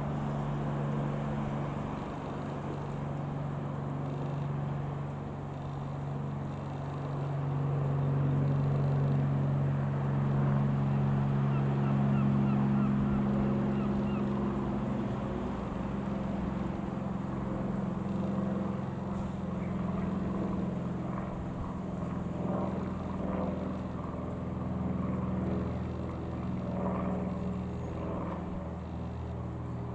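Steady engine drone, a low hum whose pitch shifts slightly around the middle.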